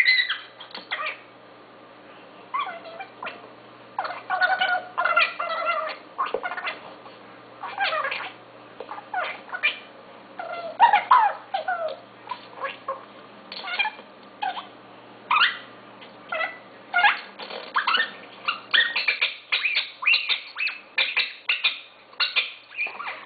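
A dog giving short, high-pitched, chirp-like barks over and over, with quiet gaps between them, coming thicker and faster over the last few seconds.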